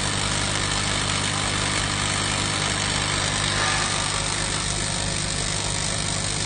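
Panasonic KRII MIG welding machine running, a steady hum with an even hiss of noise over it.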